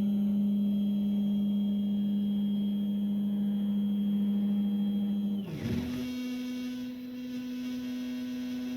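Stepper motors of a DIY CNC gantry whining at a steady pitch while moving at constant speed. About five and a half seconds in the pitch dips and climbs back as one move slows and the next speeds up, then holds a little higher.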